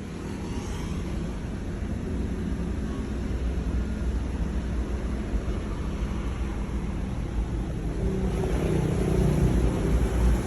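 Chevrolet Lacetti engine idling, warm and knocking, as it does after about 30 minutes of running. The sound grows a little louder near the end.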